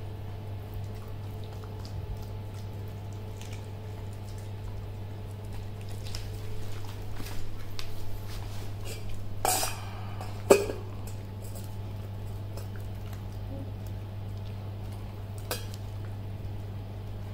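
Puppy chewing and crunching a raw chicken wing, the bones cracking and the wing clacking against the concrete floor. The crunching gets busier in the middle, with one sharp, loud clack about ten seconds in. A steady low hum runs underneath.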